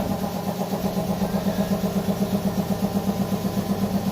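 A small engine or machine running steadily, with an even pulse of about seven beats a second.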